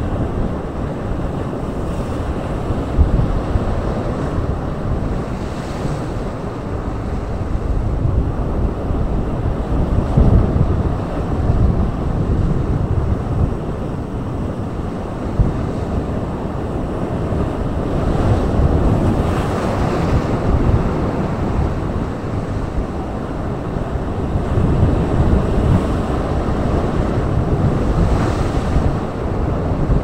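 Sea waves breaking and washing over rocks on a rocky shoreline: a continuous rush of surf that swells every several seconds as each wave comes in, with wind rumbling on the microphone.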